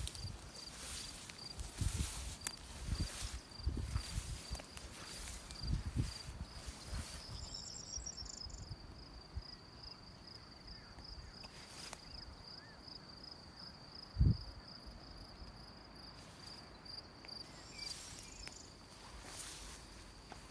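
A grassland insect chirping in a steady, high-pitched pulsing rhythm of several pulses a second, over grass swishing and footsteps through the meadow in the first several seconds. A single loud thump comes about fourteen seconds in.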